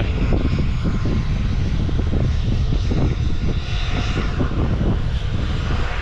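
Large jet airliner's engines running at takeoff thrust, a loud, steady noise heaviest in the low end, with the jet blast gusting over the microphone.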